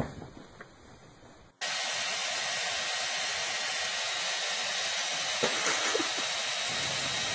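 A short click, then about one and a half seconds in a loud, steady static-like hiss cuts in suddenly and keeps on without change, with a couple of faint clicks in it.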